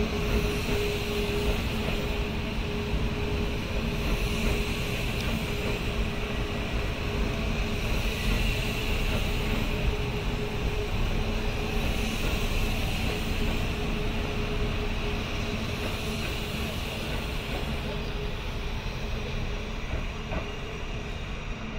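Kintetsu electric train running along the tracks, with steady rolling noise and a faint steady hum. It grows quieter over the last few seconds as the train moves away.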